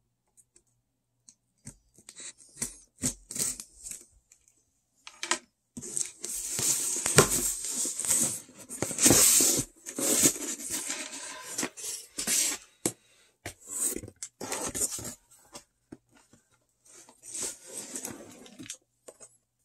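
Cardboard packaging being torn open and handled: irregular tearing, rustling and clicks, busiest through the middle stretch.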